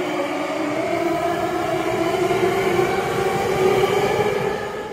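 Saitama Railway 2000 series electric train running, its traction motors giving a whine of several tones that climbs slowly in pitch as the train gathers speed, over a rumble of running gear.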